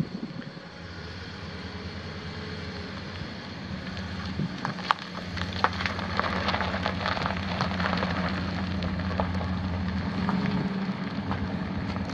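A 2001 Dodge Ram 2500's 5.9 L gasoline V8 running steadily with a low hum, a little louder after about five seconds. Irregular crackling and sharp clicks come through from about four to ten seconds in.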